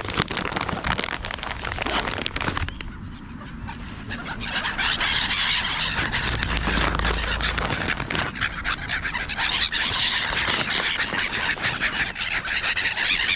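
A flock of gulls calling in a dense, overlapping chorus of short high cries, with a flurry of wingbeats as they take off and land. The calling grows fuller about four seconds in.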